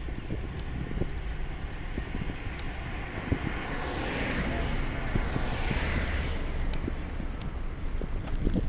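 Wind rumbling on the microphone of a moving bike, with a few light clicks and knocks. About four seconds in, a car passes, its tyre hiss swelling and fading over two or three seconds.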